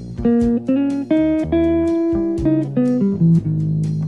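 Jazz combo recording: a single-note melody line of short and held notes over a bass line, with light regular cymbal taps behind.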